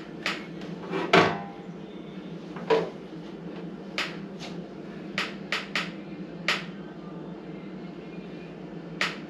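About a dozen irregular sharp knocks and clicks of hard parts being handled while an over-the-range microwave that won't come off its mount is worked at, the loudest about a second in, over a steady low hum.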